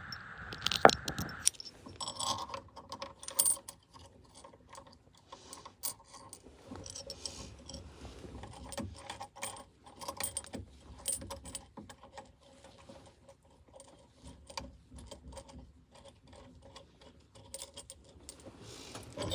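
Irregular light metallic clicks and clinks of a steering wheel puller and its bolts being handled and fitted to a steering wheel hub.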